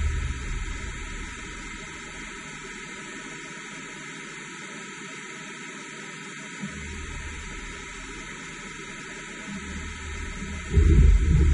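Starrag Heckert HEC 630 horizontal machining center running at rest: a steady hiss over a low hum. The hum fades away in the first second, comes back weaker in the middle, and swells into a loud low rumble near the end.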